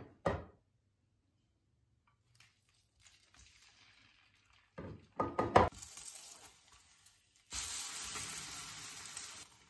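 Egg-soaked bread frying in a non-stick pan. A short clack comes right at the start, and a few sharp knocks of tongs against the pan come about five seconds in. From about seven and a half seconds a loud, steady sizzle runs as the slice is turned, then cuts off suddenly near the end.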